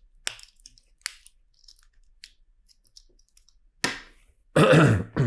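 Plastic LEGO pieces being handled and picked through: light scattered clicks, then a sharp clack just under four seconds in and a louder clatter of bricks right after it.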